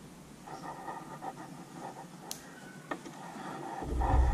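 Faint handling noise of fingers working a wire leader and a skirted seawitch lure, with a couple of small sharp clicks, then a louder low rubbing near the end as the hand moves over the wooden table and sets the lure down.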